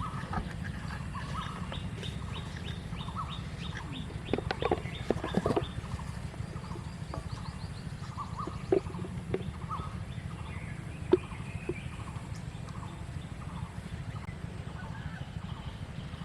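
Short animal calls repeating about twice a second over a steady low rumble, with a quick high ticking trill for a few seconds early on and a few sharp knocks.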